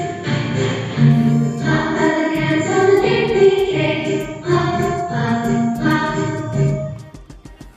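A song with singing voices over musical accompaniment, a held melody that stops about seven seconds in.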